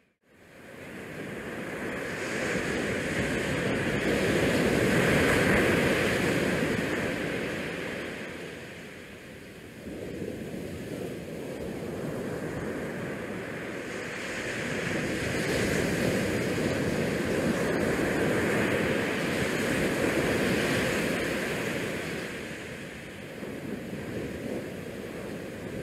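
Wind buffeting a GoPro's microphone on an open ship deck: a rushing noise that swells and eases every several seconds.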